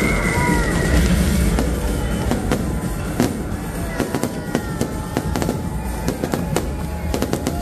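Aerial fireworks bursting overhead: a rapid run of sharp cracks and crackles that gets thicker a couple of seconds in, with the show's music playing underneath.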